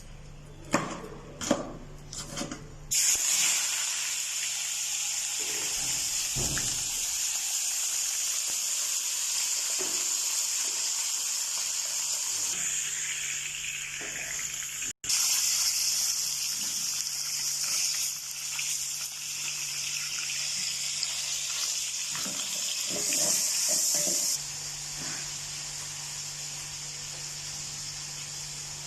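A few knife chops on a cutting board, then about three seconds in a loud, steady sizzling of food frying in hot oil in a wok.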